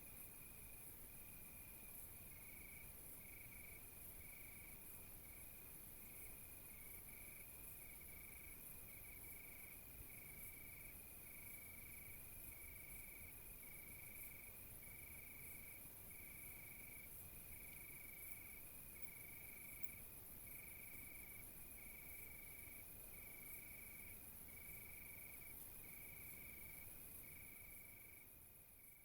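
Faint insect chirping: one steady high note pulsing about once a second over a high hiss, fading out near the end. No deer call is heard.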